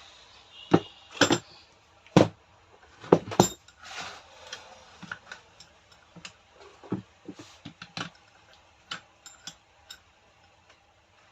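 Metal parts and hand tools being handled on a workbench during a rotary hammer armature change: scattered sharp clicks and knocks, several close together in the first few seconds, then sparser.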